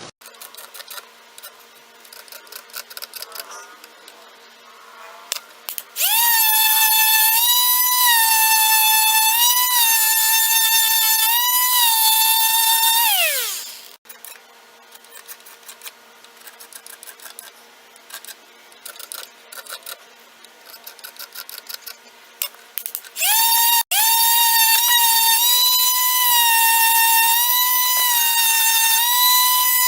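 Electric quarter-sheet sander with 100-grit paper sanding adhesive residue: its motor starts about six seconds in with a steady high whine that dips slightly every couple of seconds under pressure, spins down with falling pitch about halfway through, and starts up again for the last part. Between the runs come light clicks and handling noises.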